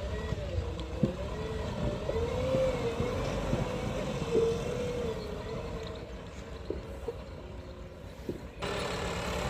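JCB 3DX backhoe loader's diesel engine working, its note rising and falling as the hydraulics take load, with a few short clanks. About a second before the end the sound changes abruptly to a steadier engine tone.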